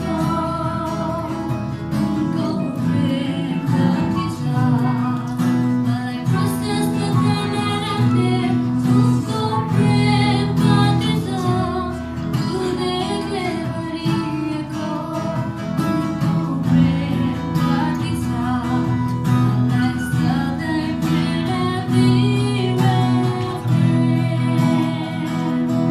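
Live worship music: a woman singing, accompanied by a strummed acoustic guitar and keyboard.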